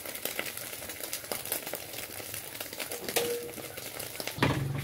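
Eggs frying in oil in a pan over a gas burner, sizzling, with a metal spatula clicking and scraping against the pan. A steady low hum starts near the end.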